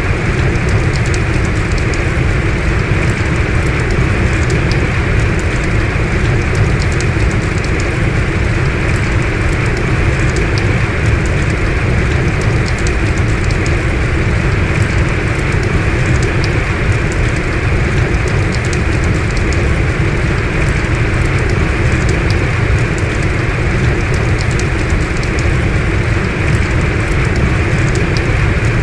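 Heavy rain falling steadily, a loud even downpour with scattered faint drop ticks.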